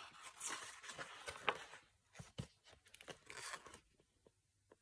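A page of a hardback picture book being turned: paper rustling for about two seconds, then a few light knocks and another short rustle as the book is handled.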